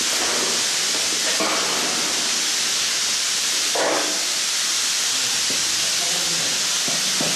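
A steady loud hiss, with a brief muffled sound about four seconds in.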